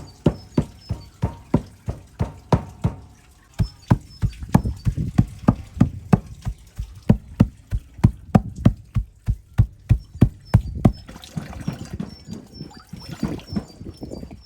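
Knife chopping on a wooden cutting board in steady strokes, about three a second, with a short pause about three seconds in and looser strokes near the end.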